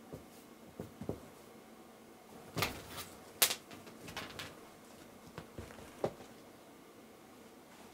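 A cat pouncing and scrambling on a bedspread after a feather wand toy: scattered soft thumps and fabric rustles, with the loudest cluster about two and a half to three and a half seconds in.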